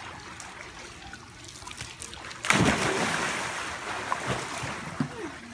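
Swimming pool water splashing: faint lapping at first, then a sudden loud splash about two and a half seconds in, with the water churning and settling for a few seconds after.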